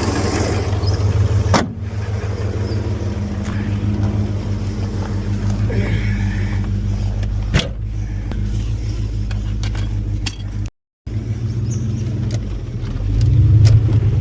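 Holden 5 litre V8 engine of a 1992 Commodore VP SS running steadily at low revs. The sound cuts out briefly near the end, then the engine gets louder.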